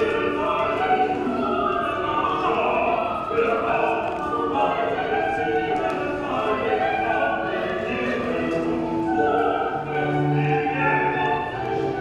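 Runway music: a classical-style piece with operatic singing over held, layered notes that shift every second or so.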